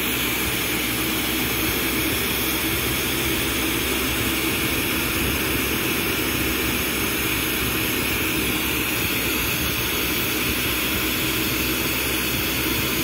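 Steady rushing hiss of a lampworking bench torch's flame burning without a break while glass is heated in it.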